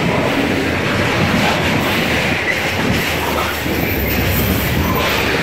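Container freight train's wagons rolling past close by: a steady, loud rumble and clatter of steel wheels on the rails.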